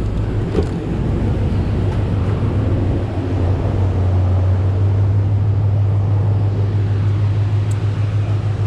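Ford Mustang GT's 4.6L three-valve V8 running steadily at low revs on a chassis dyno before the pull, a constant low drone with no revving.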